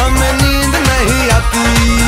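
Background dance music with a steady beat and heavy bass, its melody bending up and down in pitch.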